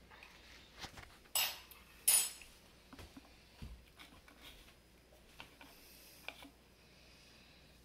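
Quiet handling noises from a plastic honey squeeze bottle being squeezed over a plastic food processor bowl: a few short clicks and knocks, the two loudest about a second and a half and two seconds in.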